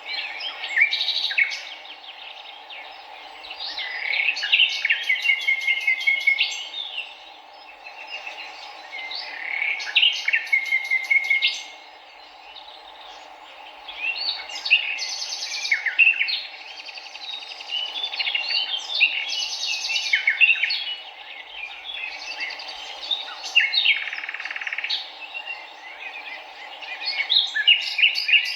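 Wild birds singing in repeated bouts of quick chirps and trills, a new phrase every few seconds, over the steady rush of a flowing river.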